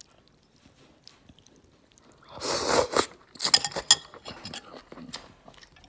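Close-miked eating of rice vermicelli noodle soup. About two seconds in there is a loud slurp lasting most of a second, followed by wet chewing and sharp mouth clicks that fade to softer chewing.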